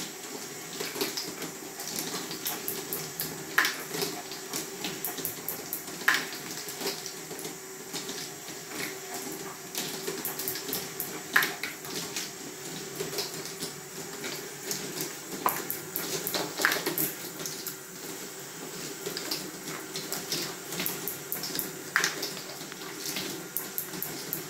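Steel balls rolling along a plastic Fischertechnik flexible track, a continuous rattling rush, with sharp clicks every few seconds as balls knock together or against the track. A steady low hum runs underneath.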